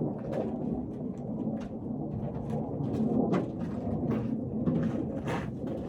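Wind buffeting the microphone outdoors, a steady, fluctuating low rumble, with a few light clicks and knocks scattered through it.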